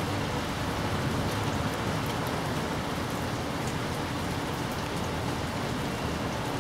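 Steady rain falling, an even hiss with a few faint drop ticks scattered through it.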